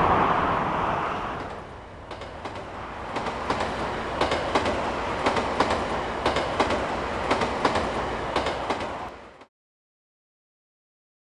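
A car passing close by, then a train running along an elevated track with a steady clickety-clack of wheels over the rail joints. The sound cuts off suddenly about nine seconds in.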